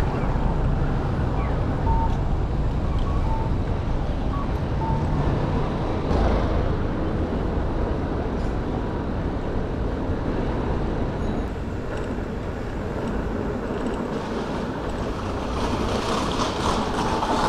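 Street traffic noise mixed with wind rumbling on the microphone of a moving rider, with a low engine hum in the first few seconds.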